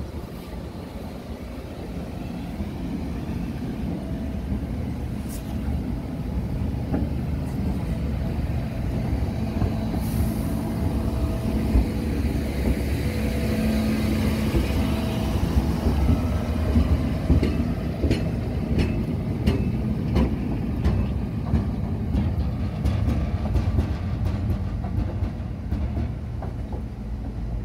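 Road-rail excavator's diesel engine running as it travels along the track over the level crossing. The engine rumble builds over the first few seconds and is loudest around the middle, and a run of clicks and knocks comes from its wheels and the trailing rail wagon crossing the rail joints in the second half.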